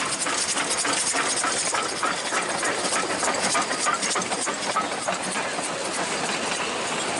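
Narrow-gauge steam locomotive passing close, chuffing in quick, even exhaust beats over a hiss of steam. After about four seconds the beats give way to a steady rumble as the carriages roll past.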